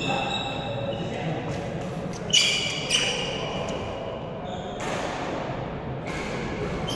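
Badminton play echoing in a large sports hall: shoe squeaks on the wooden gym floor and sharp racket-on-shuttlecock hits, two louder hits about two and three seconds in, over a low hall din.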